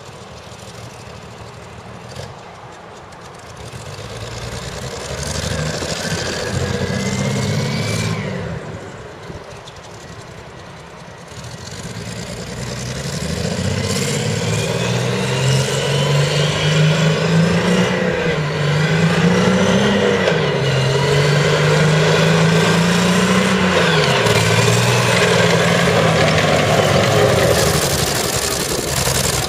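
Jaguar J60 4.2-litre straight-six petrol engine of a CVR(T) Striker being revved: a short rise and fall, a dip back down, then a climb to higher revs held for most of the rest, wavering up and down. The engine is misfiring badly, the result of a stuck valve.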